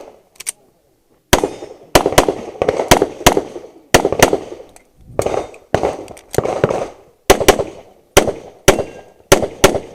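A string of handgun shots fired in quick succession, about two a second with some close pairs, each crack followed by a short echo: a competitor shooting a practical-shooting course of fire.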